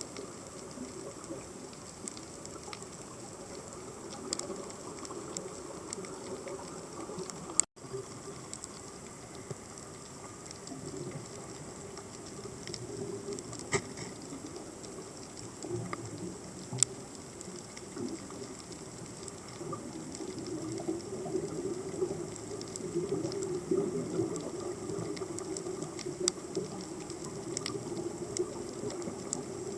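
Underwater sea ambience picked up by a submerged camera: a steady low rushing noise that grows somewhat louder in the second half, with scattered sharp clicks and a faint steady high tone. A sharp click with a brief dropout comes about 8 s in.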